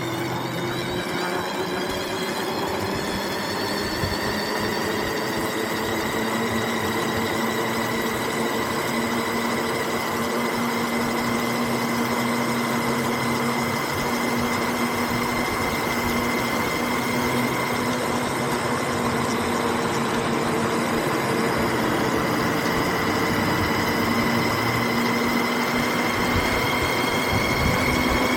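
The motor of a small ridden vehicle, whining steadily under way over road and wind noise, its pitch rising slowly near the end as speed picks up.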